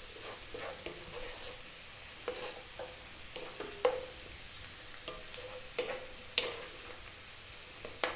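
Chopped onion, celery, garlic and olives frying in oil in a frying pan with a steady sizzle, stirred with a wooden spatula that scrapes the pan and knocks against it a few times.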